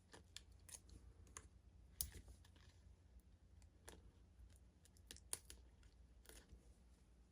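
Faint scissors snipping paper: a scattering of short, quiet snips and clicks, the loudest about two seconds in.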